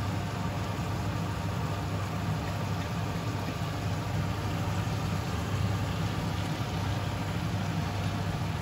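Steady low hum with a hiss over it, from a pan of vegetables and beef stir-frying on a gas hob.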